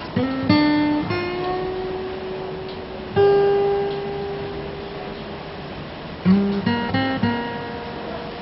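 Acoustic guitar played note by note: a few plucked notes, one left to ring for about three seconds, then a quick run of notes near the end.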